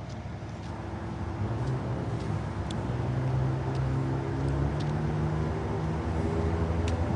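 Engine of a large vehicle running steadily at low revs, getting somewhat louder over the first three seconds.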